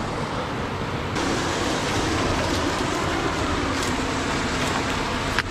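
Creek water rushing over rocks: a steady rush that turns brighter about a second in, with a few faint knocks near the end.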